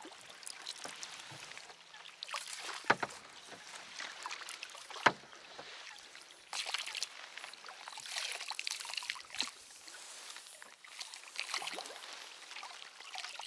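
A small boat being moved along by hand strokes: water splashing and dripping from the blades in bursts every second or two. There are two sharp knocks about three and five seconds in.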